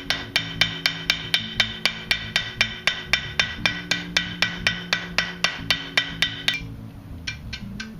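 Blacksmith's hammer striking hot iron on an anvil in a steady run of about four blows a second, each with a ringing anvil tone, rounding off the tip of a forged fork. The heavy blows stop about six and a half seconds in and give way to lighter, quieter taps. Background music plays underneath.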